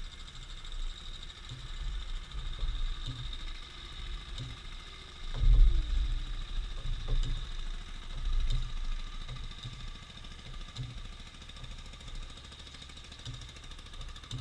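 Wind buffeting the microphone: an uneven low rumble in gusts, strongest about five and a half seconds in.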